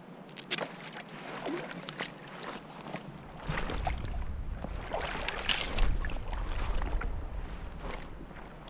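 River water splashing and sloshing as a landing net is plunged in and worked around a hooked Atlantic salmon at the surface. A few sharp clicks come in the first two seconds. The splashing grows louder with a low rumble from about three and a half seconds in, then fades near the end.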